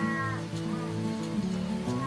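Soft piano music with steady held notes, with the tail of a falling animal call fading out at the start.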